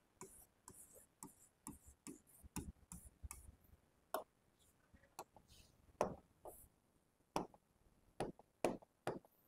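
Stylus tapping and scraping on the glass of an interactive smartboard screen while writing and picking a pen colour: faint, irregular clicks.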